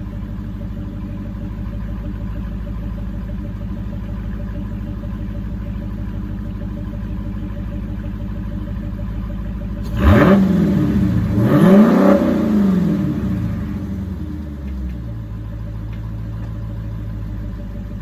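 Dodge Challenger's V8 idling steadily, then revved twice in quick succession about ten seconds in, the revs climbing and falling back each time before it settles to idle again.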